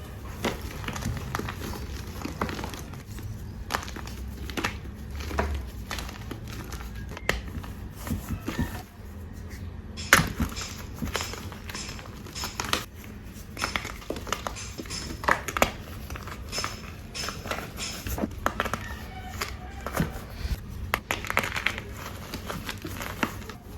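Bars of reformed gym chalk being crunched and crumbled: many sharp, irregular crunches, over a steady low rumble of construction work in the background.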